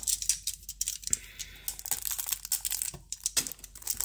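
Hands rustling and crinkling plastic-wrapped packaging and paper inside a cardboard box while lifting out a small shrink-wrapped package: an irregular run of short crackles and rustles.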